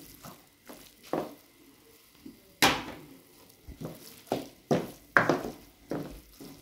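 Wooden spatula stirring and scraping a thick chicken-and-vegetable filling around a non-stick wok, in irregular separate strokes, loudest a little under three seconds in and again just past five. The cook is working cornflour-thickened stock through the filling and keeping it off the bottom of the pan.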